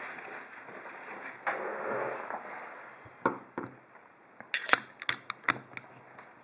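Handling noise as the padlock and tools are moved about on the bench, then a run of sharp small clicks and taps, most of them in a quick cluster about five seconds in.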